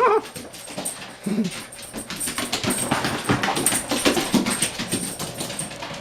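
A dog whimpering and whining in short, irregular cries, over scattered small clicks and rustles.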